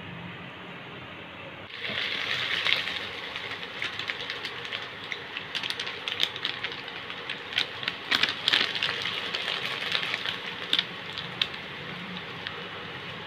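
Noodles and chicken pieces frying in a hot pan: a sizzle that starts suddenly about two seconds in and keeps going, with many sharp clicks and taps, most of them in the middle.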